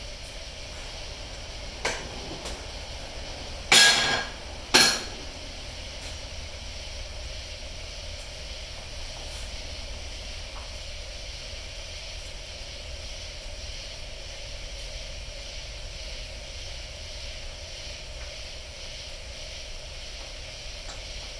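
Bondo Glass fiberglass filler being scooped from its can and stirred, with two loud knocks about four and five seconds in, over a steady hiss.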